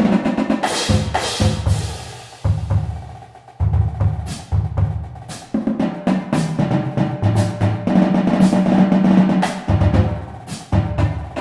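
Music driven by a drum kit, with bass drum, snare and cymbal hits over a sustained bass line; it thins out briefly about two and a half seconds in.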